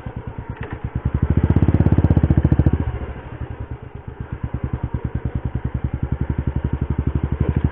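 Motorcycle engine running at low speed with a rapid, even pulsing beat. It grows louder from about a second in to nearly three seconds in, then eases back to a steady, quieter run.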